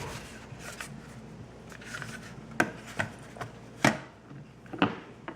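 Hard objects being handled: light rubbing and scraping, then about five sharp clicks and knocks in the second half, the loudest near four seconds in.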